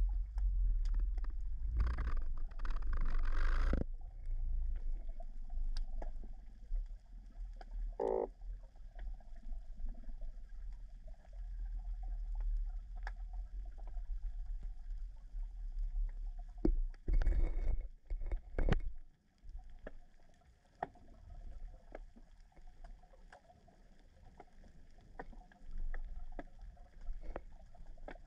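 Underwater sound picked up by a submerged camera: a steady low water noise with many scattered sharp clicks, and a couple of louder bursts of rushing water, one a couple of seconds in and another about two-thirds of the way through.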